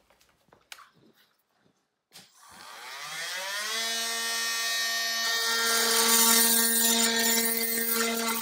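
Compact cordless power tool spinning up with a rising whine about two and a half seconds in, then running at a steady pitch as it cuts into the old metal steam-valve fitting on the radiator pipe. The harsh cutting hiss grows from about halfway through. A few light handling clicks come before it starts.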